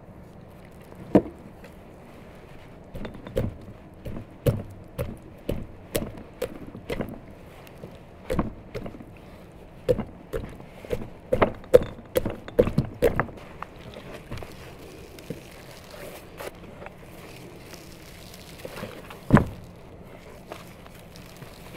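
A knife stabbed again and again into a whole raw chicken on a wooden cutting board: a run of sharp, irregular knocks, about two a second and thickest toward the middle. One louder knock comes near the end.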